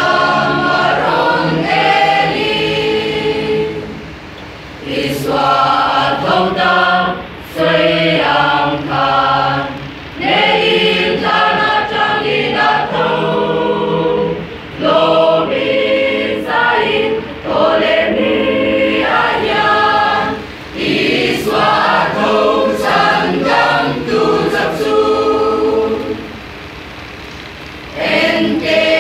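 Mixed choir of men and women singing a hymn together, phrase by phrase with short breaks, pausing for about two seconds near the end before starting again.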